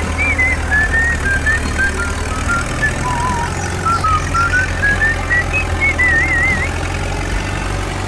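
A steady low engine rumble, as of a heavy machine running, under a light tune of short high notes. The notes step down and then climb back up, ending in a quick wavering trill about six seconds in.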